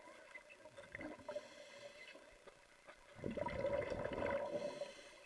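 Muffled underwater pool sound picked up by a submerged camera: a steady hum with water sloshing and bubbling against the housing, swelling louder from about three seconds in for nearly two seconds.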